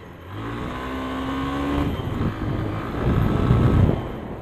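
Hero Karizma ZMR motorcycle's single-cylinder engine running under throttle on a dirt track, its pitch rising gently for the first couple of seconds, then a louder, rough rumble from about three to four seconds in.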